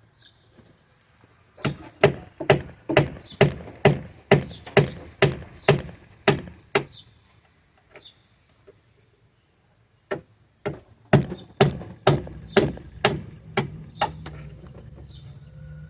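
Hammer blows on a Jeep Wrangler TJ door hinge, driving out the old hinge bushings. Two runs of sharp, evenly spaced strikes, about two to three a second, with a pause of a few seconds between them.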